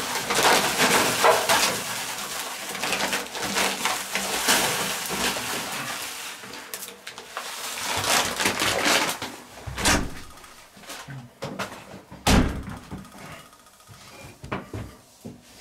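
Charcoal being added to the fire under a hanging cooking pot: a rustling, scraping noise that fades over the first half, then a few separate knocks, the loudest about ten and twelve seconds in.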